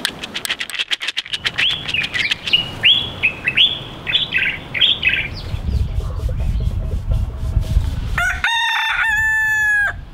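Two seashells clicked together in a quick rhythm that speeds up, then bird chirps and a low rumble. Near the end a rooster crows once.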